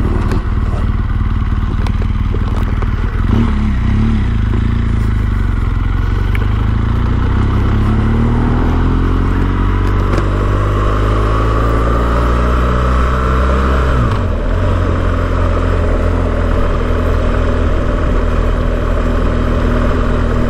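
Motorcycle engine running under way, with wind and road noise. About a third of the way in, the engine note climbs steadily for several seconds as the bike accelerates. It drops suddenly at a gear change, then holds a steady pitch.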